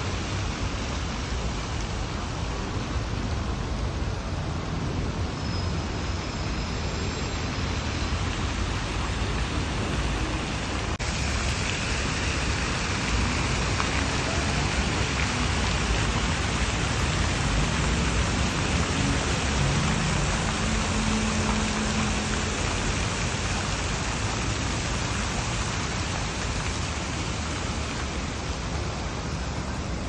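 Steady rushing splash of fountain jets falling into a pool, mixed with the low rumble of city traffic; the sound changes abruptly about eleven seconds in.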